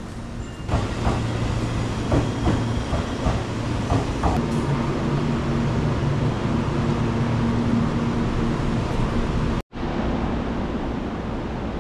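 Sunrise Express sleeper train (285 series electric multiple unit), running out of service, moving along the platform. A rumble with a run of clicks from the wheels crossing rail joints, over a steady motor hum. Near the end the sound cuts out for an instant, then gives way to steadier station rumble.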